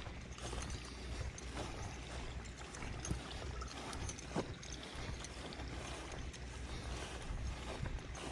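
Steady rush of flowing creek water over a low rumble, broken by a few light knocks, near the start and about three and four and a half seconds in.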